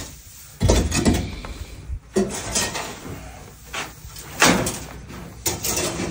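Scrapes and knocks of a long-handled tool clearing dirt and straw from a shed floor: several irregular strokes a second or so apart.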